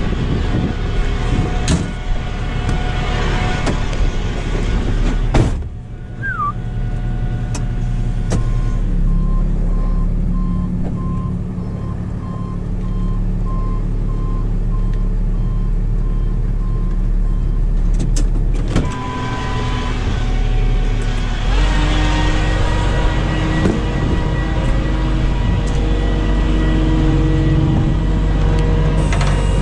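Tow truck engine running steadily as the wrecker is backed up to the box truck. A door thumps shut about six seconds in, a run of short regular beeps follows for about ten seconds, and in the last third the engine is louder and fuller as the truck moves.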